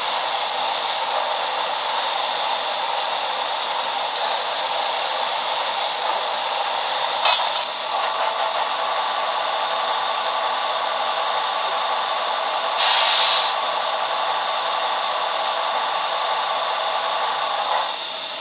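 Steam-locomotive sound effects from the Paragon 2 DCC sound decoder in a BLI HO-scale 2-10-2, played through the model's small speaker with the engine standing. First comes the tender water-fill effect, a steady rushing hiss. After a click about seven seconds in, the coal-firing effect (coal shovel or stoker auger) runs with a steady mechanical hum, and a brighter burst comes about halfway through.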